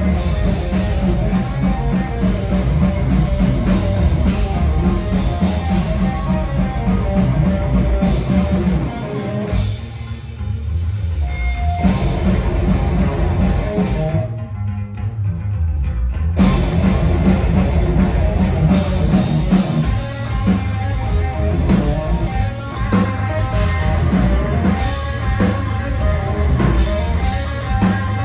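A live heavy rock band playing: distorted electric guitar, bass guitar and drum kit. About halfway through, everything but a low rumble drops out for two seconds, then the full band comes back in.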